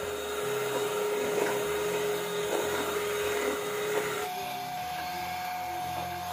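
Electric hand mixer running steadily, its beaters whirring through butter-and-sugar batter in a stainless steel bowl. About four seconds in, its whine steps up to a higher pitch.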